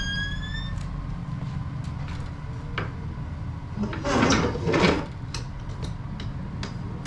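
Low, steady road rumble inside a moving vehicle, with a short rising squeak at the start and a few light clicks. About four seconds in comes a brief, louder rustling scrape in two quick pulses.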